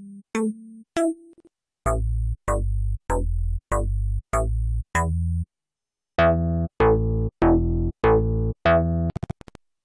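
Ingo1 software synthesizer playing bass presets, one short repeated note about every 0.6 s with a click at each attack. It switches to a new, deeper bass patch after a short pause about two seconds in, and to a richer-toned one after another pause about six seconds in. A quick run of clicks comes near the end.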